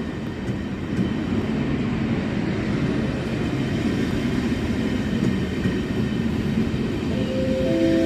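Train running along the platform track with a steady rumble, a few held tones setting in near the end.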